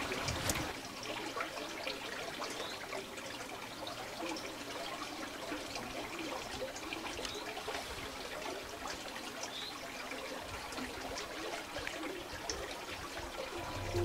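Water trickling steadily through the stone channel of a small country lavoir (old village wash-house).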